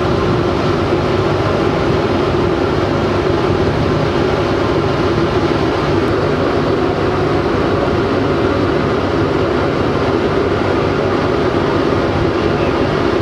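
Boat engine running steadily under way, a loud, even drone heard from on board.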